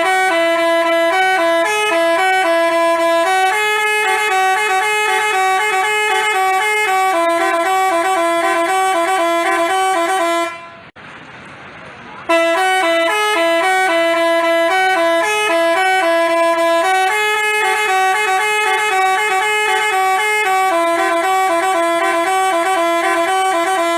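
Basuri telolet horn, a multi-trumpet bus horn, playing its rapid alternating 'telolet' tune of several pitched notes. It stops about ten seconds in and starts the same tune again about two seconds later.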